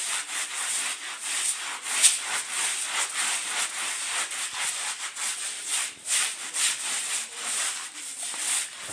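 Stiff brush scrubbing a carpet by hand in quick back-and-forth strokes, about two to three a second.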